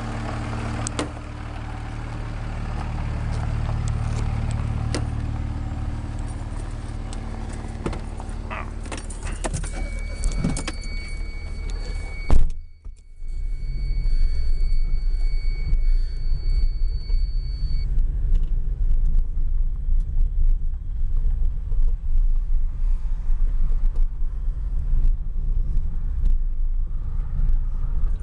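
Pickup truck engine running as the truck drives off, then, after an abrupt cut about halfway through, steady road rumble and engine noise heard from inside a following car, with small clicks and rattles.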